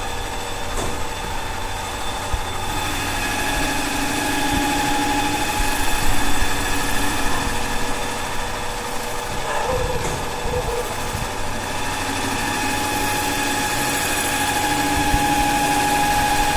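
Engine idling steadily, with a constant hum.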